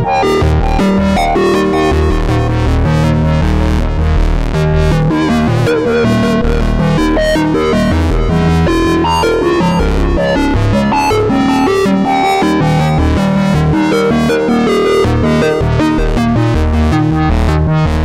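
Nord Lead A1 virtual analog synthesizer playing its 'A Sequencer' preset: a fast sequenced pattern of short notes over a deep low end.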